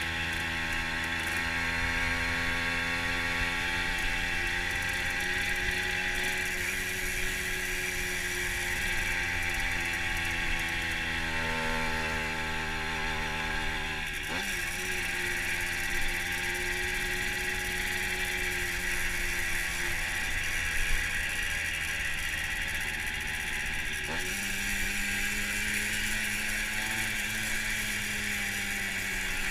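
Fantic TI sports moped's small two-stroke engine running under way, heard from the rider's seat. The engine note drifts slowly, changes abruptly about halfway through, and steps up in pitch again near the end.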